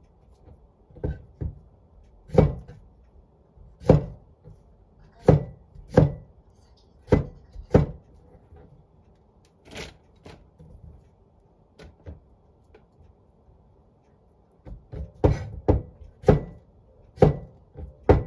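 Cleaver chopping daikon radish into cubes on a cutting board: single sharp knocks about once a second, a short pause about two-thirds of the way through, then quicker chops near the end.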